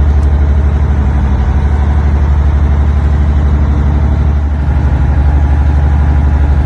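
Boat engine running steadily: a loud, low drone with a fast, even pulse.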